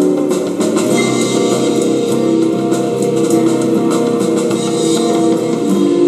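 Music with drums: a copyright-free song played from an MP3 player into a cassette deck while it is being recorded onto tape.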